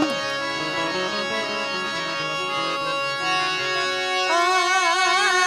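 Harmonium playing held notes with a reedy sound. About four seconds in, a wavering melodic line with vibrato comes in over it and the music gets a little louder.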